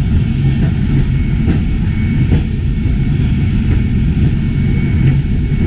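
Peak Tram funicular car running along its track, heard from inside the car: a steady low rumble with a few faint clicks from the wheels and track, over a thin steady whine.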